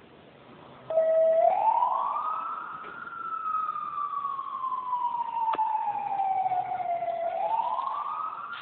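Fire engine's siren switching on about a second in and wailing: a short steady tone, then a slow rise, a long slow fall and a second rise.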